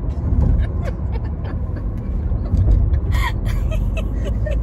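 Steady road and engine rumble inside the cabin of a moving car, with a woman laughing about three seconds in.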